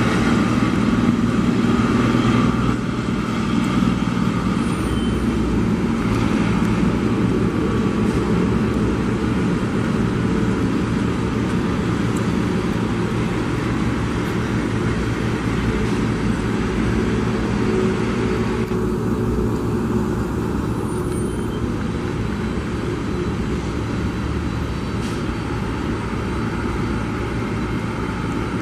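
Steady low engine rumble of traffic and airport ground machinery, unbroken throughout, with the high end briefly dulled about two-thirds of the way in.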